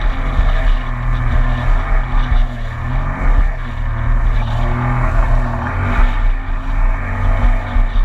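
2019 Yamaha EX WaveRunner's three-cylinder engine and jet pump running at cruising speed, with the rush of water and spray along the hull and wind on the microphone. The engine note shifts slightly up and down as the throttle changes.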